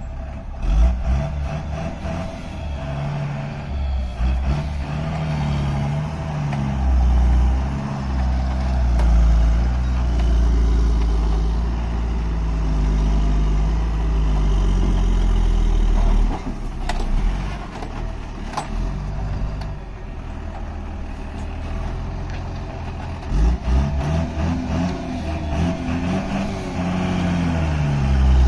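Heavy truck engine running under load, its pitch repeatedly rising and falling as it revs and drops back, over a deep rumble. A few sharp knocks come just past the middle.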